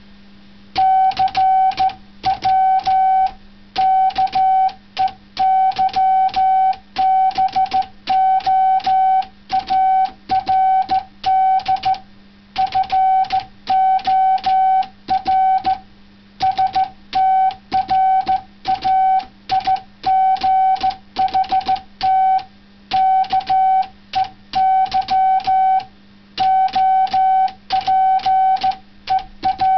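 Morse code sidetone beeping out text character by character, a single steady pitch keyed in dots and dashes by a typewriter converted into a CW keyboard. Faint typewriter key clicks come through, and a steady low hum sits underneath.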